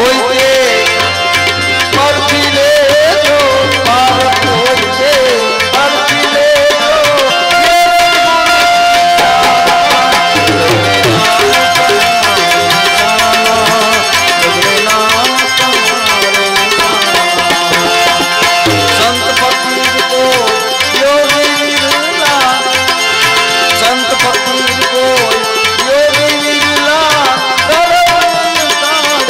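Live santvani devotional music: tabla playing a steady beat under a wavering melody line, with one long held note about a third of the way through.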